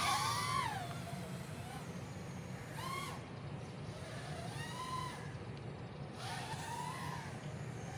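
3-inch FPV micro racer quadcopter's brushless motors whining in flight, the pitch sweeping up and down four times as the throttle is punched and eased, loudest at the start. A steady low rumble runs underneath.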